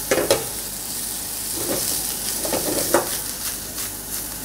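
Fried rice sizzling in a wok over a gas flame as it is tossed and stirred, with the spatula scraping and knocking against the wok several times.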